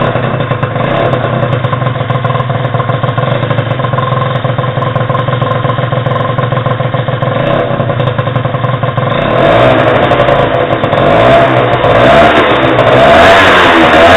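TKR Furious scooter's small two-stroke engine, fitted with a Yasuni R exhaust, idling steadily for about nine seconds after starting, then being revved in repeated throttle blips, louder and rising and falling in pitch.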